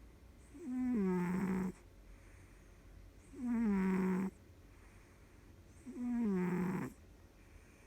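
Sleeping domestic cat snoring: three pitched snores about a second long, about two and a half seconds apart, each dropping slightly in pitch.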